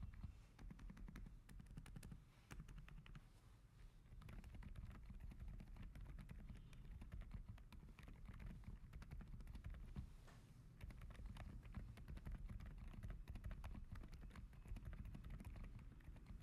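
Typing on a Mchose G87 mechanical keyboard fitted with Optimus Crystal Silent switches: a fast, very quiet patter of keystrokes.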